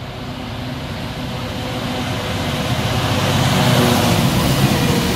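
Two Class 66 diesel-electric freight locomotives, each with a two-stroke V12 engine, running in multiple as they approach and pass close by with a freight train. Engine noise and wheel-on-rail rumble grow steadily louder to a peak about four seconds in, as the leading locomotive goes past.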